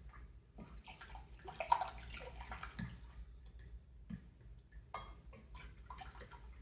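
Faint wet stirring and sloshing in a mixing bowl, with small taps and scrapes: sourdough starter being mixed into water before the flour goes in.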